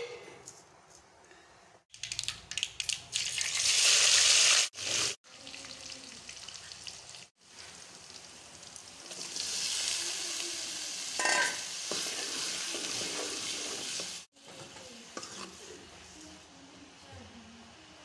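Chopped tomatoes and green chillies frying in hot oil in an aluminium kadai: a loud burst of sizzling about two seconds in, then a steadier, quieter sizzle with a brief clink midway.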